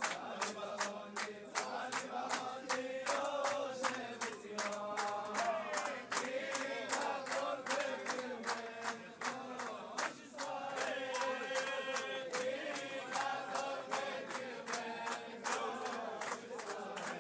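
A crowd of men singing together, with rhythmic hand-clapping in time at about three or four claps a second.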